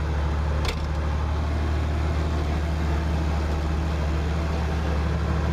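Massey Ferguson 2705 tractor's diesel engine running steadily, heard from inside the cab, with a single sharp click a little under a second in.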